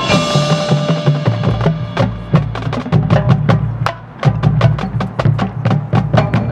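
Marching band and its percussion playing loudly. The passage opens with a crash, then low sustained notes sit under rapid, sharp drum and mallet strikes, with a brief drop about four seconds in.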